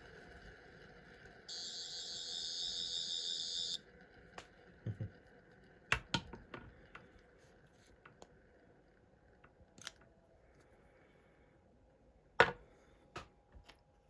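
A high electronic warbling buzz for about two seconds, then a scatter of sharp clicks and knocks from handling a small object, the loudest one near the end.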